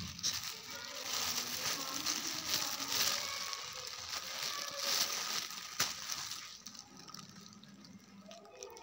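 A rushing, hissing noise with a couple of sharp clicks, easing off about two-thirds of the way through, with faint voices underneath.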